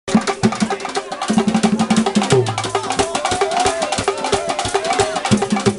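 Several standing hand drums played together in a fast, dense rhythm: many sharp slaps over deep ringing drum tones, accompanying dancing.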